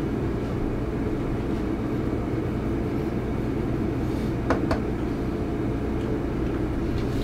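Steady low mechanical hum, with two light knocks about four and a half seconds in.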